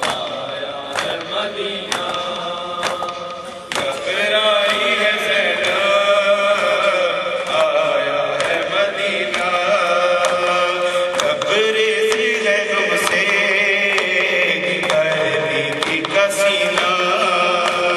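A male voice chants an Urdu noha (a mourning lament) into a microphone, growing louder about four seconds in. Sharp beats land about once a second throughout, typical of mourners' rhythmic chest-beating (matam) keeping time.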